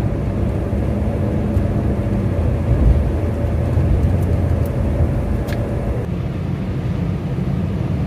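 Steady road and engine noise inside a car cabin at highway speed, a low even rumble, with a faint steady tone that stops about six seconds in.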